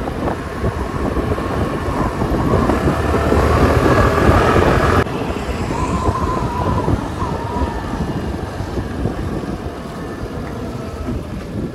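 Wind buffeting a helmet-mounted microphone on a moving Suzuki Avenis scooter, a loud rumble and hiss over the scooter's running engine. The noise drops sharply about five seconds in and eases off after that.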